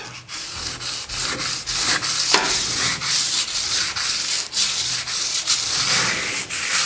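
Sandpaper rubbed by hand over old paint on a steel truck body panel, in quick back-and-forth strokes about two to three a second. It is light scuffing to give a key for new paint.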